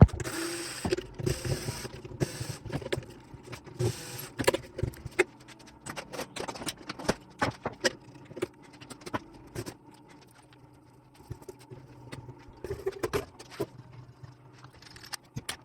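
Clicks, knocks and scraping of hands and tools working on a welding machine's case as its front part is taken off, with irregular small impacts and a few longer scrapes near the start.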